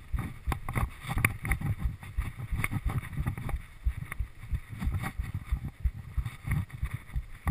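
Mountain bike riding down a rough dirt trail: irregular, frequent rattling and knocking of the bike and GoPro over the bumps, over a low rumble of wind on the microphone.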